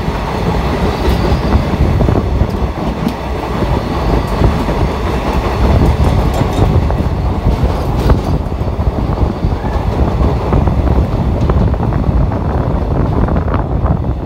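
Passenger train running, heard from on board: a loud, steady rumble of wheels on the track with scattered clicks over rail joints.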